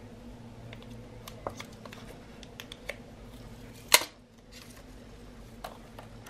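Small clicks and taps from handling a GoPro Hero 9 Black camera and its packaging, with one sharp snap about four seconds in.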